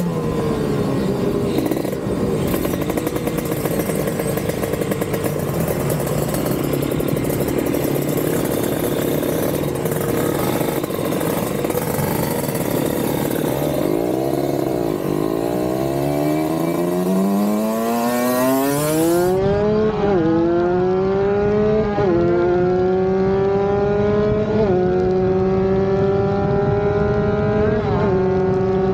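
Tuned Kawasaki Ninja 150 RR two-stroke single running under way, heavy rushing wind noise over it at first. From about halfway the engine note climbs steeply and then holds at high, near-steady revs, with a few brief blips, as the bike runs at top speed.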